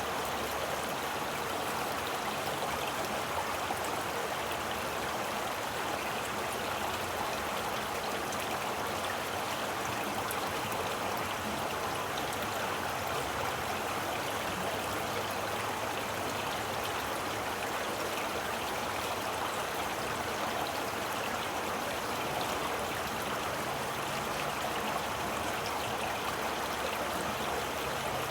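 Steady rushing and babbling of a flowing stream, an even, unbroken water sound.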